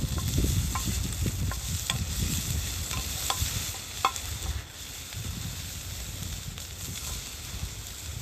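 Food sizzling in a frying pan while being stirred, with a metal utensil clinking against the pan several times in the first four seconds. The sizzle drops quieter after about four and a half seconds.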